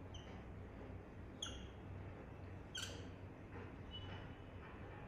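Whiteboard marker squeaking on the board as it writes, several short faint squeaks a second or so apart over a low steady hum.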